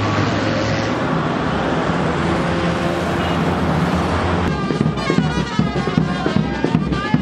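Steady road-traffic noise. About four and a half seconds in, music with a beat and a melody comes in and takes over.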